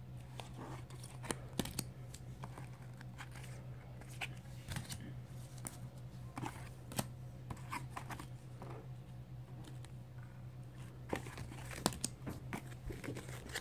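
Rigid plastic top loaders holding trading cards being handled and shuffled: irregular sharp clicks and crinkly rustling as the holders knock and slide against each other, over a steady low hum.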